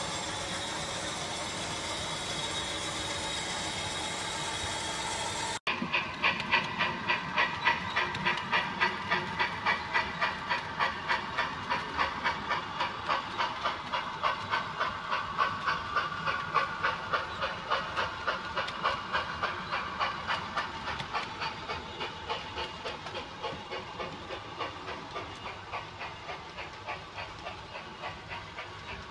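A model diesel locomotive's sound unit gives a steady engine drone. About five seconds in it cuts to a model Union Pacific steam locomotive's sound decoder chuffing in an even beat of about two to three chuffs a second, slowly fading as the train runs on.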